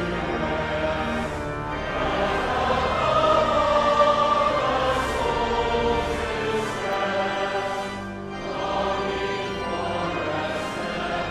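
A choir singing a hymn over instrumental accompaniment.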